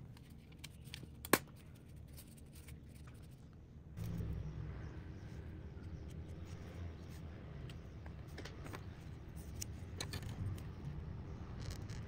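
Faint scattered clicks and taps from hands working a foam rubber mat strip with a utility knife and a marker, over a low steady background rumble; the sharpest click comes about a second in.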